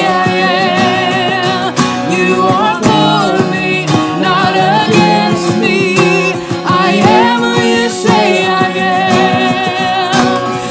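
Worship song: women's and men's voices singing together over a strummed acoustic guitar and electric guitar.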